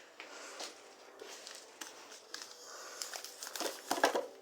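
Snack packaging crinkling and rustling as it is handled, with a louder burst of crinkling about three and a half seconds in.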